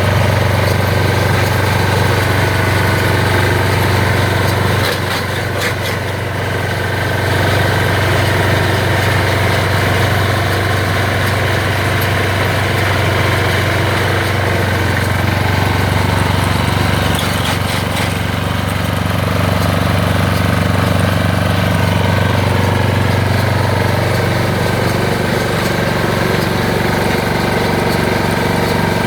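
ISEKI RBX810 ride-on straw roll baler working, its small diesel engine running steadily while the baler picks up and rolls straw. The level dips briefly about five seconds in, and there are a few light clicks from the machine.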